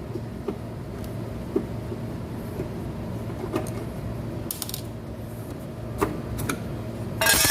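Scattered light metal clicks and taps of hand tools working on a window air conditioner's fan motor wiring box, over a steady background hum, with a louder clatter near the end.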